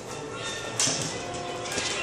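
Background music with steady sustained notes, and a brief loud hiss about a second in.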